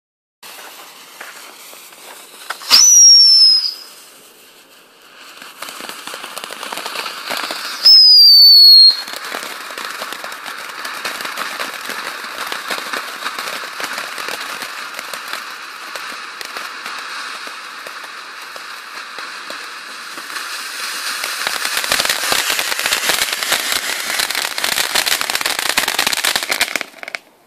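WECO Chico Chico ground fountain firework burning. A hiss is broken twice by a loud, shrill whistle about a second long that drops slightly in pitch. Then comes a long spray of hissing and crackling that grows louder toward the end and cuts off suddenly.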